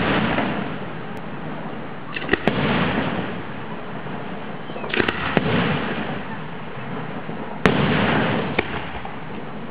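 Aerial firework shells bursting: a sharp bang every two to three seconds, some coming in quick clusters, each trailing off in a rumbling echo. The sharpest bang comes late on.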